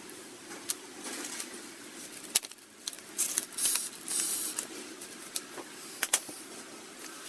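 Two short bursts of hissing, about three and four seconds in, among scattered sharp clicks and knocks, over a steady low hum.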